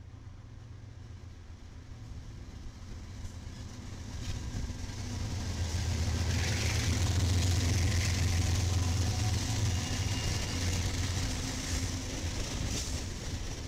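Diesel freight locomotives passing close by: a deep engine rumble that builds, is loudest about six to nine seconds in as the units go past, then eases as the cars follow.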